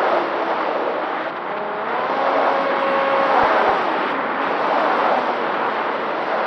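Electric motor and propeller of an FPV flying wing running under loud rushing air noise, its whine gliding up in pitch about two seconds in and holding for a couple of seconds before sinking back into the noise.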